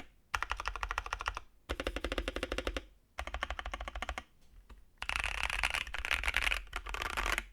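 Fast typing on a custom Space65 mechanical keyboard with lubed Gazzew Boba U4T 62g tactile switches and PBT keycaps: rapid keystrokes in three short runs with brief pauses, then a longer, denser run near the end.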